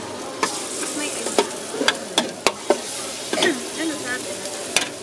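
Instant noodles sizzling on a large steel wok while a metal spatula stirs them, scraping the pan and knocking against it with several sharp clanks.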